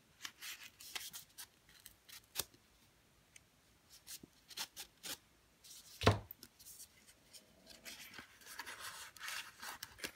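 Soft rustling and rubbing of a folded paper packet being handled and opened, with scattered light clicks. There is one dull knock about six seconds in, and a longer stretch of paper sliding and rustling near the end as the paper die cuts are pulled out.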